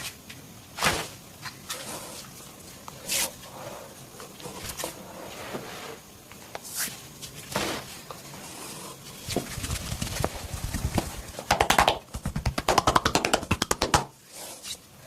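Hands working on a person during a massage: a few single sharp slaps, then several seconds of fast rhythmic slapping or tapping at about ten strokes a second, which stops near the end.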